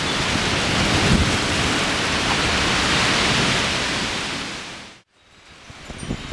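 Storm wind gusting hard, a loud, dense rushing that cuts off suddenly about five seconds in and comes back much quieter.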